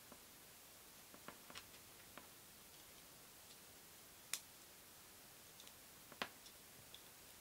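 Faint scattered clicks and ticks of a plastic UK plug and screwdriver being handled, with two sharper clicks about four and six seconds in, over near-silent room tone.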